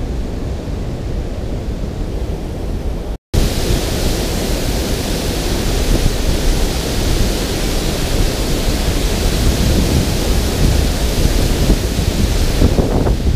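Water rushing over a spillway, a steady hiss with wind rumbling on the microphone underneath. The sound drops out for an instant about three seconds in and comes back brighter.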